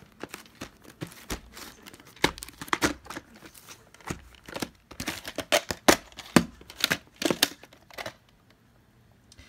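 Plastic VHS clamshell case being handled by hand: an irregular run of crackling clicks and rustles that stops about a second and a half before the end.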